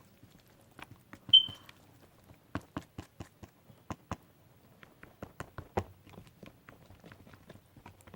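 Stick stirring a toothpaste and hand-sanitizer slime mixture, making irregular clicks and taps. There is one loud, short, high squeak a little over a second in.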